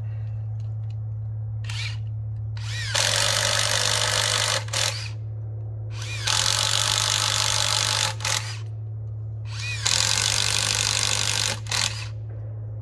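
Cordless drill boring three inoculation holes, about an inch and a quarter deep, into a hardwood log for shiitake spawn. Each hole is a burst of high whine lasting a couple of seconds, with a short rising spin-up just before it. A steady low hum runs underneath.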